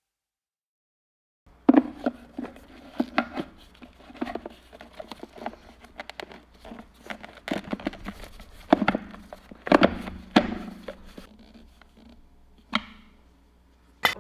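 Irregular clicks and knocks of hand work with tools and parts, over a faint steady low hum, starting after about a second and a half of silence.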